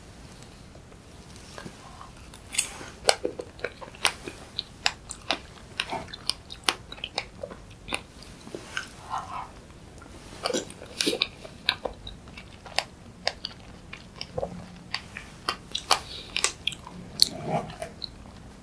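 Close-miked chewing and wet mouth smacks of a person eating a strawberry and fresh-cream dessert: many sharp, irregular clicks, several a second.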